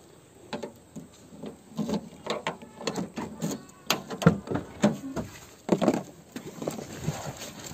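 Irregular clicks, knocks and rustles of someone getting into a Maruti Suzuki Alto hatchback: door and seat handling noise.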